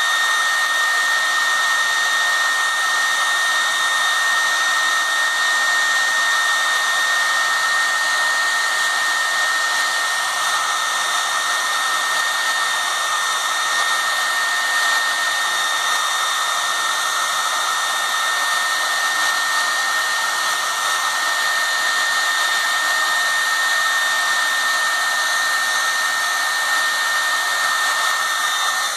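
Handheld hair dryer running on high: a steady high whine over the rush of air.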